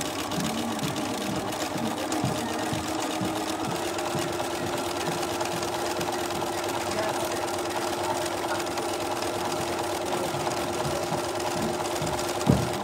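Bernina B 335 electric sewing machine stitching at a steady, even speed: a fast run of needle strokes over a constant motor hum. It stops near the end with a short knock.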